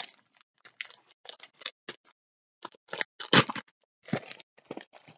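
Thin plastic packaging crinkling and rustling in short, irregular bursts as it is handled and lifted, loudest about three seconds in.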